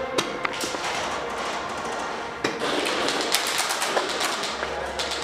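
Scattered airsoft gunfire in an indoor arena: sharp cracks and clicks of shots and BB hits over a steady background din, coming thicker in the middle.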